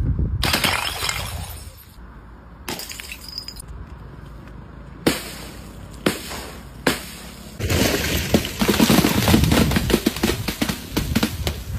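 Glass bottles smashing and shattering, loudest in the first second or so. Then a few single sharp knocks, and from about two-thirds of the way in a dense run of crackling, clattering impacts.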